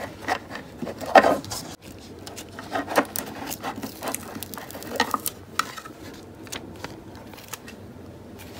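Small hard plastic toy piece being handled on a table: a run of light taps, clicks and rubbing, busiest in the first five seconds, then sparser.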